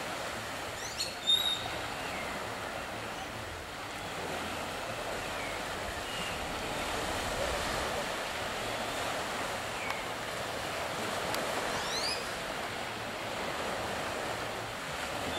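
Steady wash of small waves and wind by the shore. A few short, faint high chirps rise and fall through it now and then.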